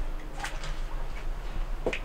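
Handling noise from a handheld camera being carried: a low rumble with two sharp knocks, one about half a second in and one near the end.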